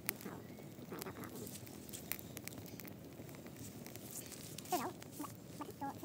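Small wood fire crackling, with scattered sharp pops. A brief pitched animal call comes about five seconds in, with a couple of fainter ones just after.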